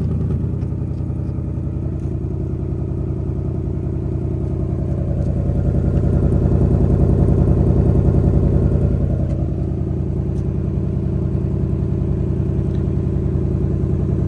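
Ford Mustang GT's 5.0 Coyote V8 with the active valve performance exhaust idling steadily shortly after a cold start. The exhaust note swells a little about halfway through, then settles back.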